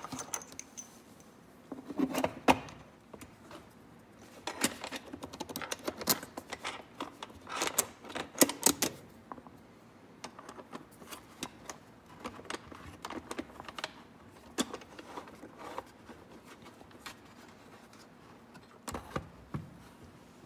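Metal carburetor and plastic air intake box being handled and fitted together on a wooden workbench: irregular clicks, taps and knocks of parts against each other and the bench. They come in busy clusters in the first half and thin out later.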